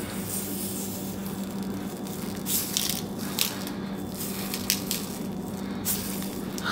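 Sprinkles rattling in a small plastic shaker bottle as it is shaken over a frosted cake, in several short shakes from a couple of seconds in, over a low steady hum.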